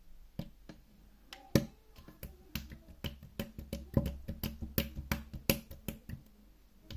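Putty-like slime being squeezed and worked in the hands, giving a run of sharp, irregular clicks and pops, several a second, thickest in the middle.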